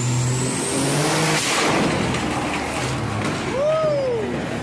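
A Dodge Ram pickup's engine revs hard under a rising turbo whine, then gives a sudden burst of noise about a second and a half in as the engine blows apart. A short shout follows near the end.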